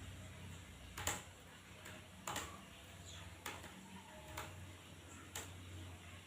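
Computer keyboard keys being pressed one at a time: about six separate clicks, roughly one a second, over a steady low hum.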